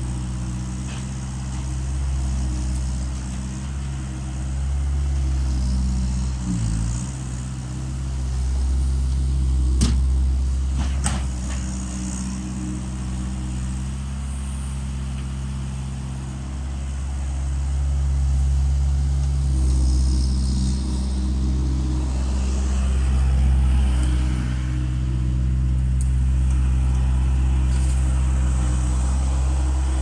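Bobcat S175 skid steer loader's diesel engine running steadily, its sound rising and falling as the machine works. A couple of sharp knocks about ten seconds in.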